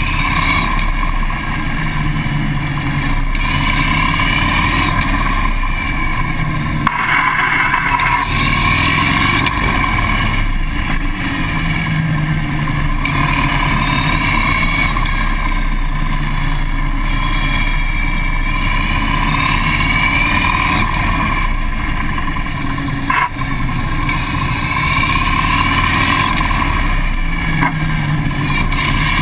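Harley-Davidson police motorcycle's V-twin engine running under way, heard from the bike itself, its revs rising and falling again and again. A brief rush of noise comes about seven seconds in.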